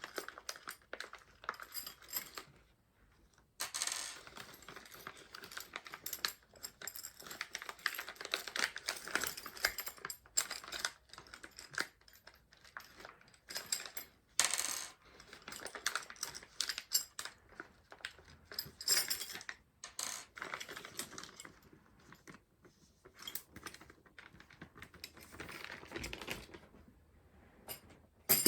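Hands handling small metal and plastic PC parts around a CPU socket while fitting a CPU contact frame: an irregular run of light metallic clinks, clicks and rustling, with a brief pause about three seconds in and a sharp click at the very end.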